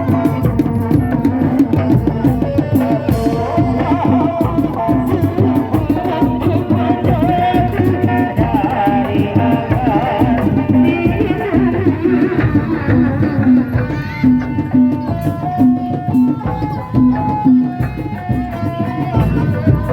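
Live kuda lumping accompaniment music: fast, busy hand-drumming under a wavering melody line. About two-thirds of the way through, the melody gives way to short notes repeated at an even pace.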